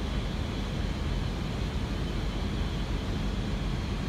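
Steady cockpit noise of an Airbus A320 in flight: an even low rumble of airflow and engines with no changes or events.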